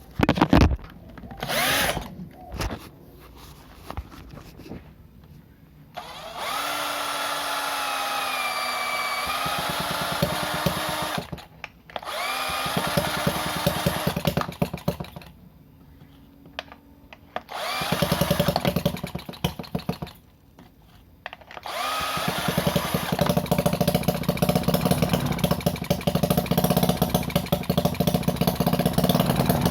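Homemade single-cylinder mini four-stroke engine, converted from a refrigerator compressor, being spun over in three whining bursts with quiet gaps between them. About three-quarters of the way through it keeps going on its own, running steadily with a fast, even firing beat.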